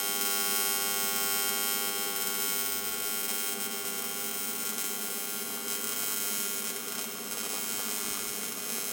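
TIG welding arc buzzing steadily as a V-band flange is welded onto a boost tube.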